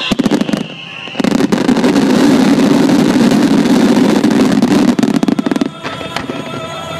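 Fireworks finale barrage: a dense, continuous volley of overlapping aerial shell bursts and crackle, very loud, easing off near the end into a few scattered bangs.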